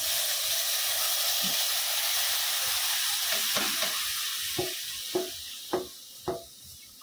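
Yogurt-marinated chicken hitting a hot metal wok and sizzling loudly, the sizzle fading over the next few seconds. From about halfway in, several sharp metal clinks come as the steel bowl is emptied against the pan.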